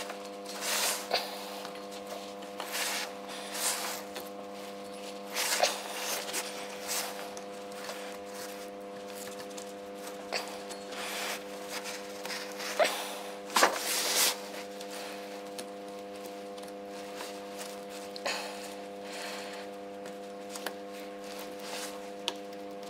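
Gloved hands working a toothed rubber timing belt onto a Volvo 940's cam pulley: irregular rubbing, rustling and small clicks, several sharper ones around the middle. A steady electrical hum runs underneath.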